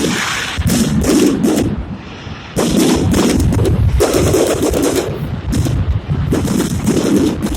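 Fireworks going off in rapid volleys, a dense run of bangs and crackles, with a short lull about two seconds in before the barrage picks up again.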